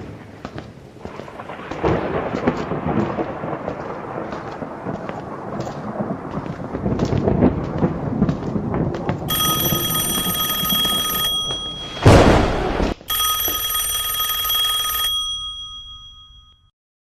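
Thunder rumbling and crackling, with a loud thunderclap about twelve seconds in. A high, steady bell-like ringing joins about nine seconds in and stops about fifteen seconds in. The sound then fades out.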